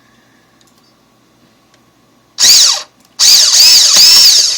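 Cordless screw gun running in two bursts, a short one about halfway in and a longer one near the end, its motor whine rising and falling in pitch with the trigger as it backs out a screw.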